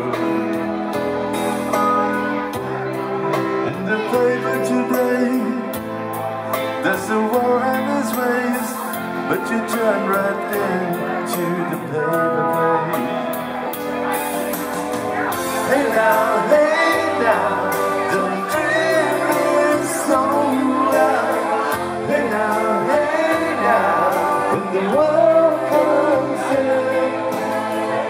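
Live band music: electronic keyboards playing held chords over low bass notes, with a singer's voice that comes in stronger and louder in the second half.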